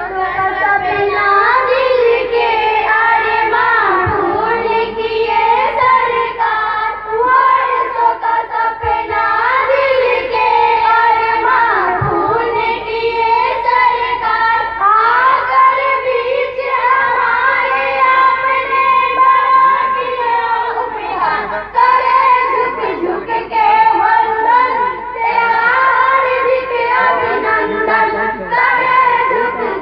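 A group of young schoolgirls singing a Hindi welcome song (swagat gaan) together into a microphone.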